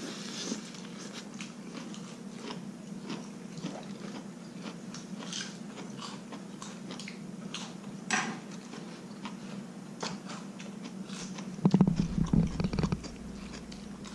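Close-up chewing of a lettuce leaf wrap: soft crunches and wet mouth clicks over a faint steady hum. About twelve seconds in there is a louder, deeper knocking and rumbling.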